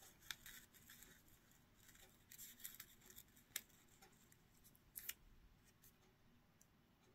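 Near silence with faint paper rustles and a few soft, short clicks as a small stamped paper cutout is picked up and handled.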